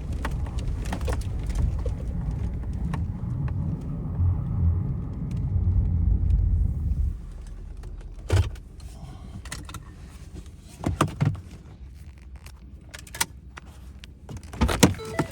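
Pickup truck engine running with a low rumble that cuts off about seven seconds in. After that come keys jangling and several sharp clunks and knocks.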